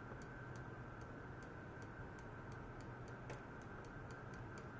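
Faint rapid ticking from an ultrasonic test rig, a piezo element on a stainless rod driven by a function generator, about three ticks a second and coming a little faster near the end. Under it runs a steady high whine and a low electrical hum.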